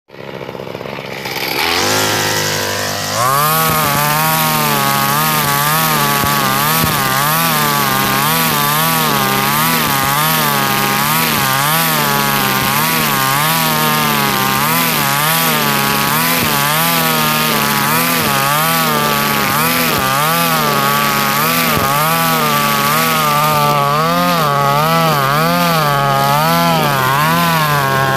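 Husqvarna 542RBS 42cc two-stroke backpack brush cutter revving up to full throttle about three seconds in, then running flat out as its 2.4 mm square nylon line cuts through tall grass. The engine pitch dips and recovers about once a second as the line bites into the grass.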